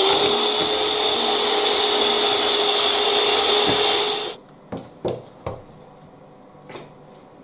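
Electric hand mixer whipping egg whites into foam: a steady motor whine that cuts off suddenly about four seconds in. A few light knocks follow.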